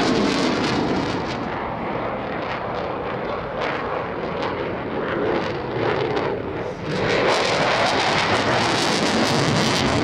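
RAF Eurofighter Typhoon's twin Eurojet EJ200 jet engines running in reheat (afterburner): a loud, crackling jet roar that dips slightly and then swells again about seven seconds in as the jet passes.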